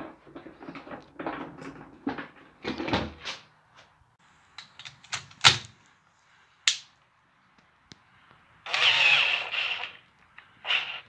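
Scattered knocks and clatter of wooden boards being handled in a small room, then a couple of sharp clicks and about a second and a half of rustling noise near the end.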